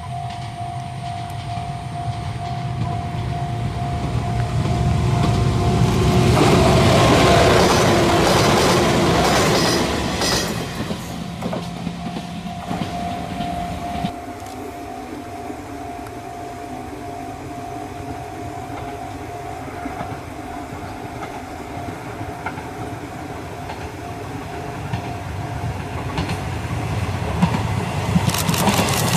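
Izuhakone Railway electric trains passing on the line, one going by about six to ten seconds in. A second, a 3000-series set, comes up near the end with its wheels clacking over the rail joints. A level-crossing warning bell dings steadily in the background.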